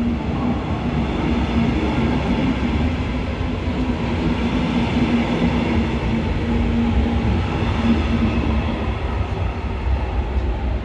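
A DB Regio double-deck regional train pulling out past a platform, its coaches rolling by with a steady rumble and a steady hum. The hum drops away near the end as the last car clears the platform.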